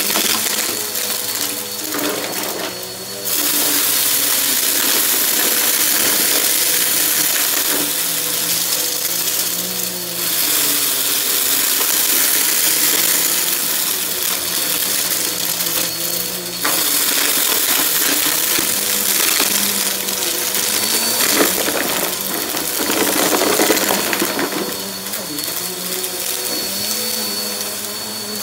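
Bissell PowerForce upright vacuum running on carpet, its motor giving a steady whine under a loud rushing hiss as loose crunchy debris crackles and rattles up into the cleaner. The hiss gets louder about three seconds in and again about halfway through.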